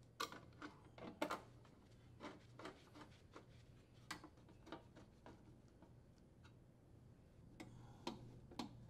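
Faint, irregular clicks and ticks of a hand-turned Phillips screwdriver driving screws into a sheet-metal junction box, over a low steady hum.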